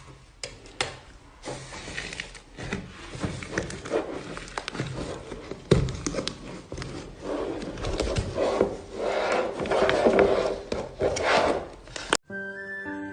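Slime being squished and kneaded by hand: irregular wet crackles, small pops and rubbing squelches. Near the end it cuts off abruptly and music begins.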